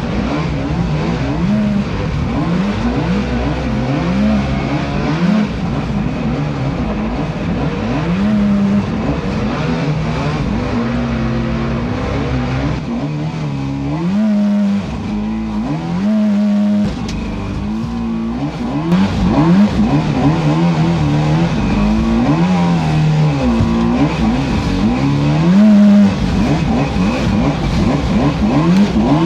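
Small boat motor running, its pitch rising and falling again and again as the throttle is opened and eased off.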